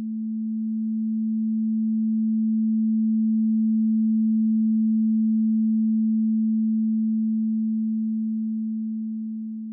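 A single low-pitched pure sine tone, held steady in pitch, with its left and right channels slowly sweeping in and out of phase with each other. It swells to a peak about halfway through and fades again.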